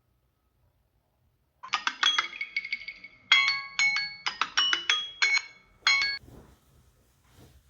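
A melodic alarm ringtone: a run of quick chiming notes that starts about a second and a half in and cuts off abruptly about six seconds in.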